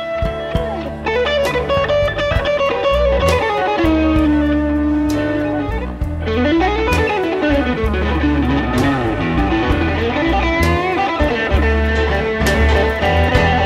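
Background music: an electric guitar plays a bluesy lead of sliding, wavering notes over bass and drums.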